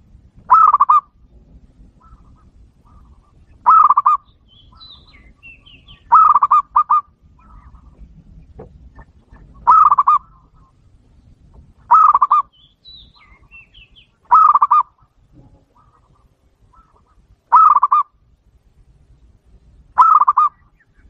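A large bird calling loudly eight times, each call short with one every two to three seconds, the third one doubled. Fainter small-bird chirps come between the calls.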